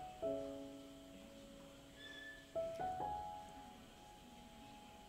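Soft background piano music: slow chords that are struck and left to fade, with a new chord about a quarter second in and another couple of notes around two and a half to three seconds in.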